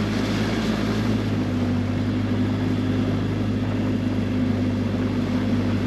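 Tour boat's engine running steadily under way, a constant low drone with a rushing noise of wind and water over it.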